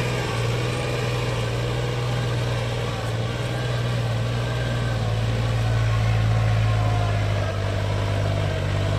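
Mahindra Oja 3140 tractor's diesel engine running steadily under load as it pulls a long-tine cultivator through the soil.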